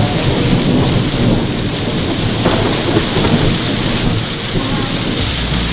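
Heavy rain pouring down, a loud steady hiss of a downpour, with a low rumble rising near the end.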